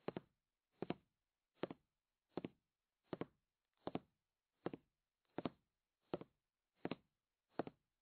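A steady beat of short double thumps, about four every three seconds, with dead silence between.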